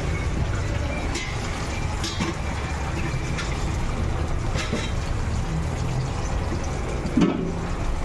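Hot oil sizzling and bubbling steadily around flour-breaded chicken pieces deep-frying, with a steady low rumble under it, a few faint crackles, and a brief knock about seven seconds in.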